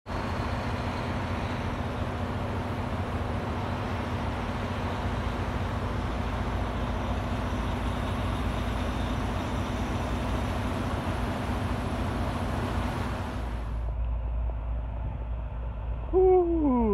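Highway traffic with semi-trucks and cars passing: a steady rush of road noise over a low, even hum. Near the end a man's voice, drawn out and falling in pitch.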